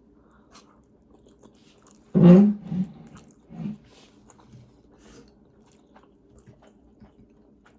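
A person eating jajangmyeon noodles close to the microphone: mouth and chewing sounds, with one loud slurp or hum about two seconds in and a few smaller ones after.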